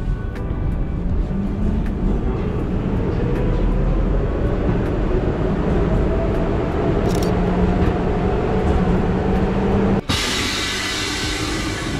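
Millennium Underground (M1) metro car running, with a steady low rumble and a motor whine that rises slowly in pitch as the train gathers speed. About ten seconds in the sound breaks off sharply into a brighter hiss.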